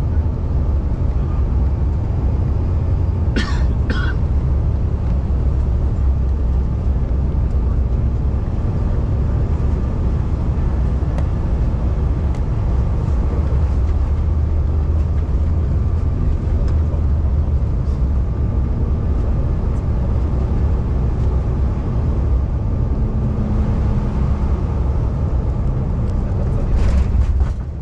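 Cabin noise of a CRJ-550 regional jet, with its two rear-mounted turbofans, during final approach, landing and rollout: a steady low engine and airflow rumble. A passenger coughs twice about three and a half seconds in, and the noise swells briefly near the end.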